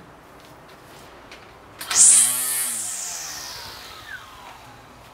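Battery-powered cordless string trimmer given a short trigger pull: the electric motor whirs up sharply about two seconds in, then winds down in pitch over the next two seconds or so as the head coasts to a stop.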